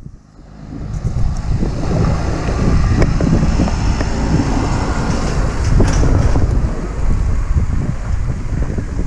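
John Deere tractor driving past towing a loaded tandem-axle silage trailer, the engine running under load. It rises over the first second or two as it comes near, then stays loud, with a few knocks and clatters from the trailer.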